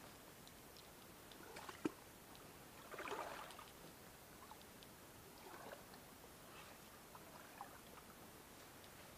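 Near-quiet stream ambience: a brief soft splash of water a little after three seconds in, a sharp click just before it, and a few fainter water sounds later.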